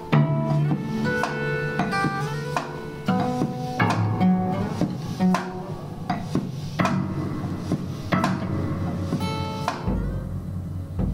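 Small band playing sparse, freely timed music: scattered short plucked notes and struck accents at an uneven pace, with the snare drum played by hand and stick. A deep low rumble comes in near the end.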